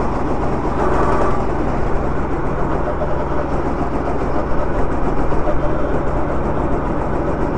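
Two-seater Sodi go-kart's engine running steadily as the kart drives through the corners.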